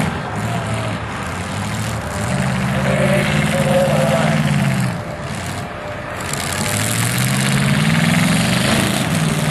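Demolition derby cars' engines revving hard as the cars push against each other, the pitch swelling and falling in two long pulls over a constant din.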